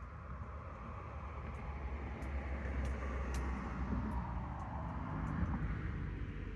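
Campfire crackling, with scattered sharp snaps from the burning wood over a steady low rumble.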